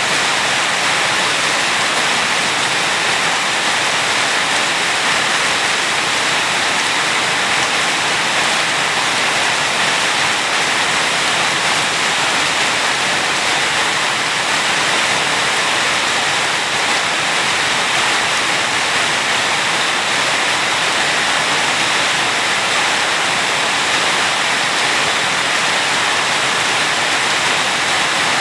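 Steady rain falling, a dense, even hiss with no breaks or single drops standing out.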